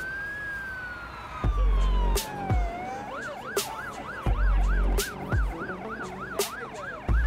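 Fire engine siren sounding a slow wail that rises and falls once, then switching about three seconds in to a fast yelp of about two and a half sweeps a second. Electronic music with heavy bass notes and drum hits plays under it.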